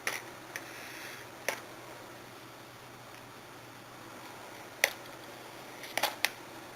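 Handling noise from taking handcuffs out of their packaging: a brief soft rustle and a handful of sharp, scattered clicks, with a quick cluster of clicks near the end.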